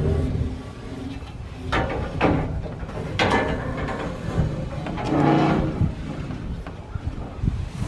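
Irregular knocks, clatter and scraping of shed parts being handled as the ridge beam is brought up into place, with a few sharp bangs.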